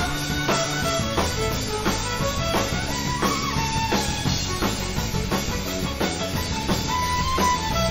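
Live pop-rock band in an instrumental passage: a violin plays the lead melody over a steady drum-kit beat, bass and electric guitar.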